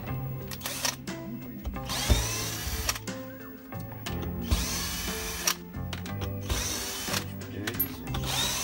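A small electric power-tool motor whirring in several short bursts.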